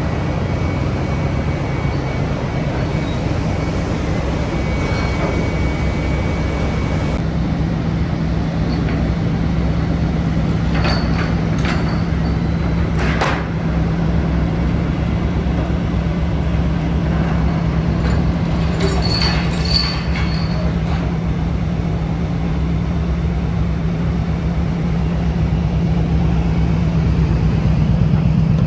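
Steady low drone of a fishing trawler's engine and machinery, with a few short metallic clanks and rattles partway through.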